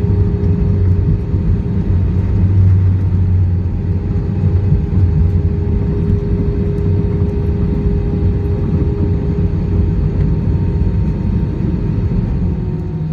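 Airbus A320 heard from inside the cabin as it rolls on the runway after touchdown: a loud, steady rumble of engines and wheels with a constant hum over it, easing off slightly near the end.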